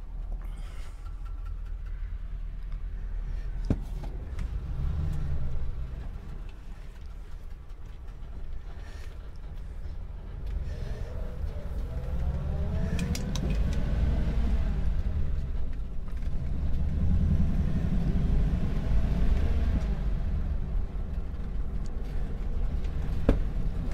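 A carbureted Ford car's engine running as the car drives off, the rumble building with a rising and falling engine note about eleven to fourteen seconds in. A sharp click sounds about four seconds in and another near the end.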